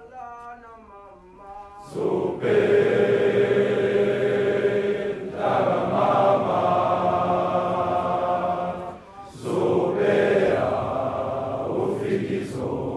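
A large crowd of schoolboys chanting a school war cry in unison. A single quieter voice leads off, the whole body of boys comes in loudly about two seconds in, breaks off briefly near nine seconds, and starts again a second later.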